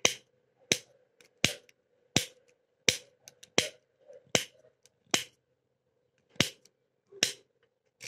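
A rake tool working the pins of an old Titan pin-tumbler padlock, with a sharp metallic click at each stroke, roughly every three-quarters of a second, and a short pause about five seconds in.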